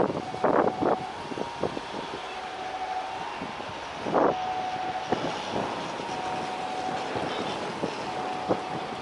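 Wind buffeting the microphone in short gusts, the strongest about four seconds in, over a steady background drone with a faint high whine.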